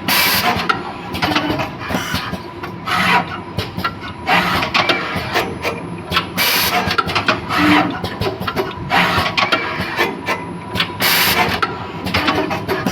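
Automatic wire soldering machine running: a busy mechanical whirring with many small clicks and a faint steady tone, and a short hiss three times.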